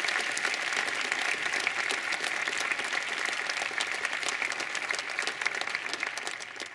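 An audience applauding steadily, dense clapping that fades out near the end.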